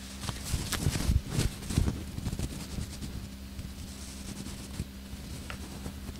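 Soft rustling and handling noises close to the microphone for the first few seconds, with a few small clicks, over a steady low hum.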